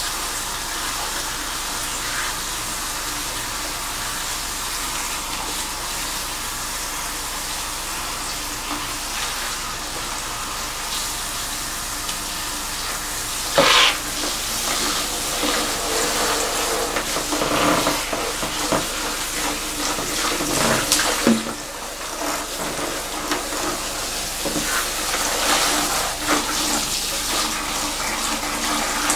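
Handheld salon shower sprayer spraying water onto hair and into a shampoo basin while gloved hands rinse the shampoo lather out. The spray hisses steadily at first; about halfway through there is a sudden loud burst, and after it the water sounds more uneven as the hands work through the hair.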